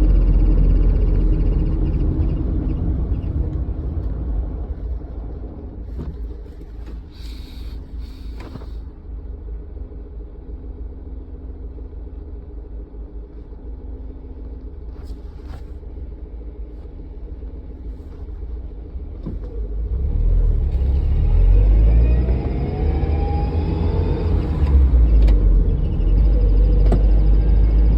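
A manual-transmission vehicle driving, its engine and road rumble easing off as it slows, then building again about two-thirds of the way through as it accelerates, with a thin whining squeal that rises in pitch with speed. This squeal comes under acceleration and engine braking but not when coasting with the clutch disengaged, which the owner takes to mean it is not coming from the engine itself.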